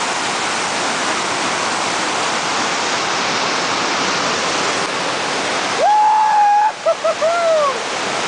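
Steady roar of a whitewater rapid. About six seconds in, a person lets out a loud, long yell that rises and then holds, followed by a few short yelps.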